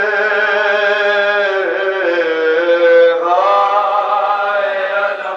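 A man chanting a nauha, a Shia mourning lament in Urdu, unaccompanied and amplified through microphones. He holds long drawn-out notes and steps up to a higher line about three seconds in.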